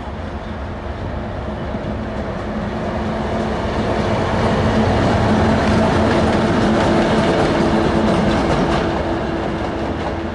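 TEM7A eight-axle diesel shunting locomotive passing close by. Its diesel engine drone, with a couple of steady held tones, grows louder, peaks as it goes past about five to eight seconds in, then fades as it moves away. Its wheels click over rail joints as it passes.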